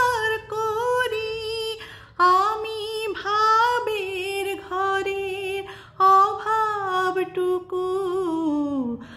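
A woman singing a Bengali song, drawing out long held notes with a wavering vibrato, with brief breaths between phrases.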